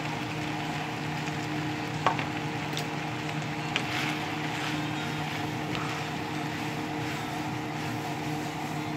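Yakisoba noodles and vegetables sizzling in a frying pan over a steady low hum. A spatula clinks sharply against the pan twice, about two and four seconds in, then tosses and scrapes through the noodles.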